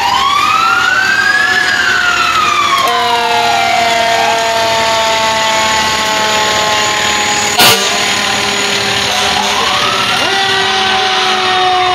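Passing parade fire engines sounding their sirens: a siren winds up and slowly down twice, over long steady horn tones held for several seconds. A single sharp crack cuts through about halfway.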